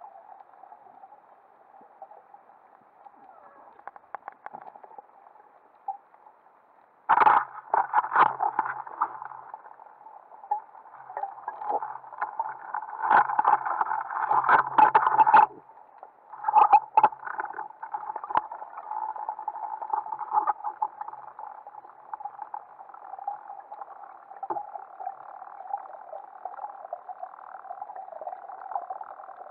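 Muffled underwater sound through a camera housing, with bursts of sharp clicks, knocks and scrapes as a speargun's spear is worked into a rocky octopus den. Steady water hiss between the bursts.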